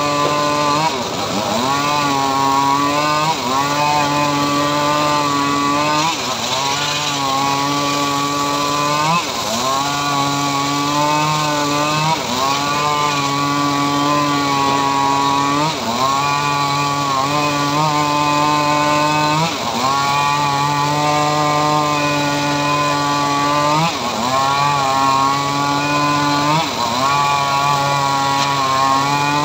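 Homemade circular saw ripping a mahogany slab lengthwise, running with a steady hum. Its pitch sags and recovers again and again as the blade bites into the wood under load.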